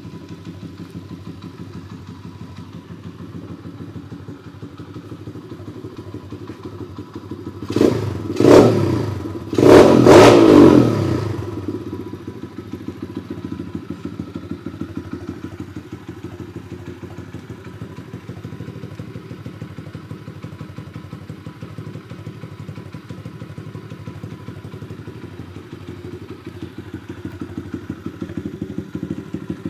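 RCM 125cc pit bike's single-cylinder four-stroke engine idling steadily, revved sharply three times about eight to eleven seconds in, the last rev the longest, then dropping back to idle. It gets a little louder near the end.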